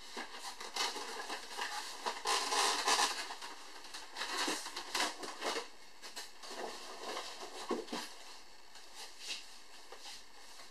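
Handling noise from an EPO-foam model plane and its packaging being unpacked: irregular rustling with small knocks and clicks. It is busiest about two to three seconds in and thins out after about six seconds.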